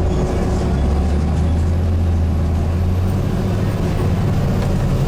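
Volvo B7TL double-decker bus's diesel engine pulling hard under kickdown acceleration, heard from inside the bus as a strong, steady low drone. A faint high whine rises slowly through the middle.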